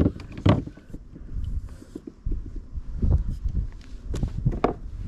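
Handling noise aboard a kayak: irregular low thumps and knocks with a few sharper clicks, as a small bass is brought aboard on the line.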